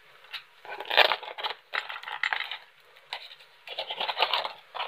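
Cardboard box being opened by hand, its flaps and cardboard insert scraping and rustling in several short bursts, the loudest about a second in.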